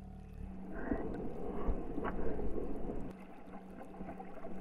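A small stream running over stones, with about two and a half seconds of rustling and crunching, with a few sharp clicks, as someone scrambles down a gravelly bank toward the water.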